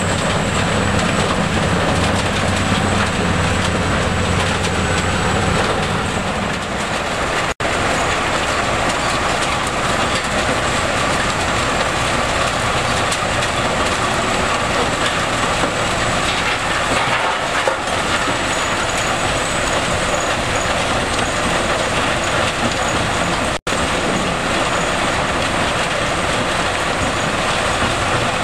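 GIPO R131C mobile crusher running under load: a loud, steady clatter of rock being crushed and rattling off its conveyors. It breaks off for an instant twice, about seven and a half and twenty-three and a half seconds in.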